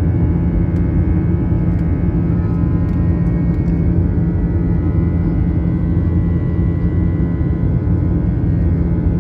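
Airbus A320 jet engines running at high power during takeoff: a steady loud rumble with several steady whining tones over it.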